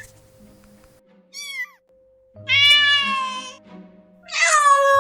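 Domestic cat meowing: one short meow, then two long drawn-out meows, the last one falling slightly in pitch.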